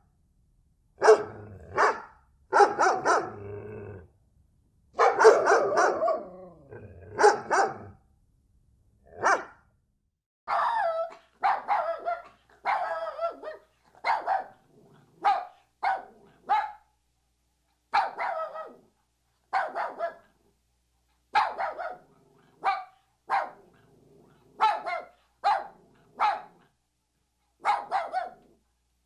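Dogs barking, several barks in quick clusters during the first few seconds and then single barks about once a second, some with a growl.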